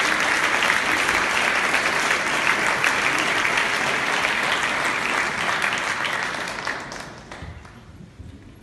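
Audience applauding in a concert hall; the clapping dies away about seven seconds in.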